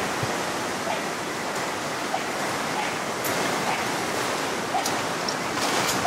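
Steady rushing of a river, with a few faint clicks over it near the middle and end.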